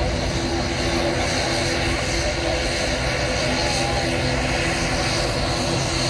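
Jet airliner taking off, its engines running at take-off power in a steady, even noise as it lifts off and climbs away, mixed with wind on the microphone.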